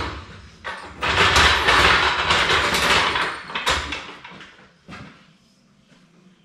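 A long-handled tool scraping and dragging on a concrete shop floor, loudest in the first few seconds and then dying away, with one short knock about five seconds in.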